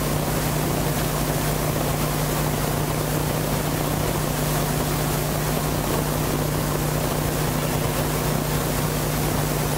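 Steady low hum under an even hiss, like a motor or electrical equipment running.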